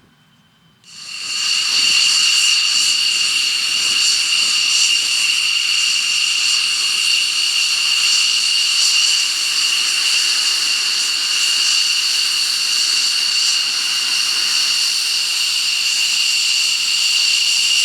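Jet aircraft engine running with a loud, steady high-pitched whine over a hiss, starting abruptly about a second in.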